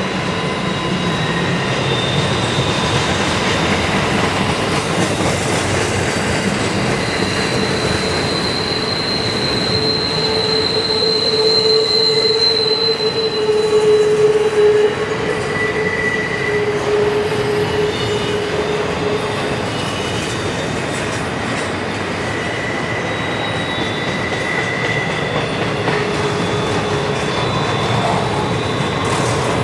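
CSX double-stack container train's freight cars rolling past steadily, with long drawn-out wheel squeals that come and go over the rolling rumble, loudest about halfway through.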